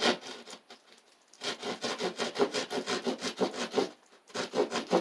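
Hand saw cutting with rapid short back-and-forth strokes, in three runs broken by brief pauses: one about half a second in and one near four seconds.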